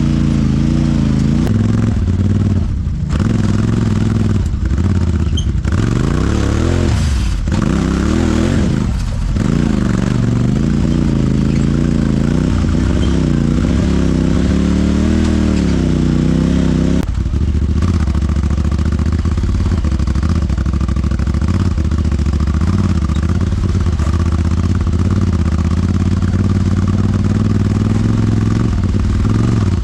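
Honda Talon 1000X-4 side-by-side's parallel-twin engine running under load, the revs rising and falling several times in the first ten seconds, then holding steady, with some clatter.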